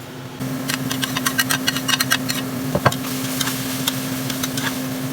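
Stir-frying in a wok: a metal spatula clicks and scrapes against the pan over a steady low hum, the stirring getting louder about half a second in.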